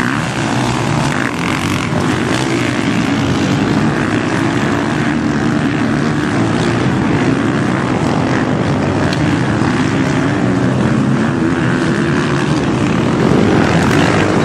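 Motocross motorcycle engines running on the track, their pitch rising and falling as they rev. Loud and continuous.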